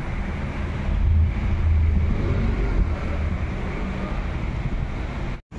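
Steady background noise, a low rumble with a hiss over it, louder for about a second near the start, cutting off suddenly just before the end.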